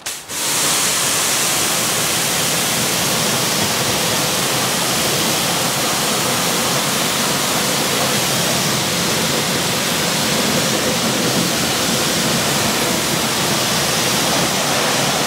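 Pressure-washer jet spraying water onto a car's alloy wheel and tyre, rinsing off iron-remover that has turned purple on the rim. It is a loud, steady hiss of water that starts abruptly at the beginning.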